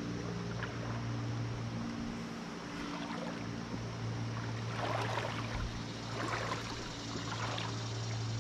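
Running water of a shallow, clear river flowing over rocks, with a steady low hum underneath. A few faint crackles come through a little past the middle.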